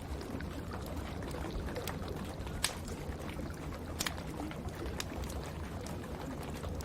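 Wood fire in a fireplace crackling, with several sharp pops, the loudest about two and a half seconds in, over a steady low rumble.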